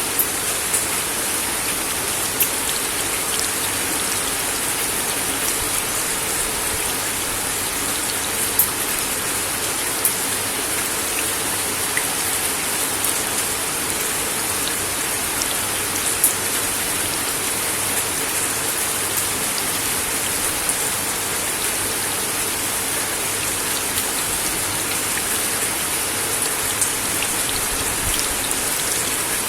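Steady rain falling on a wooden deck: a constant hiss of drops, with a few single louder drops striking close by now and then.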